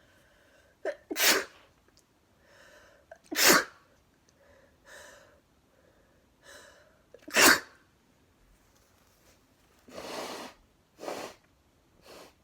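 A person sneezing three times, each sneeze a sharp, loud burst after a gasping in-breath. Near the end come two softer, breathy bursts.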